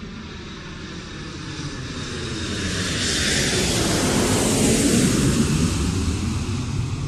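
An aircraft flying past: a rushing engine noise swells, peaks about five seconds in with a falling pitch as it passes, then fades away.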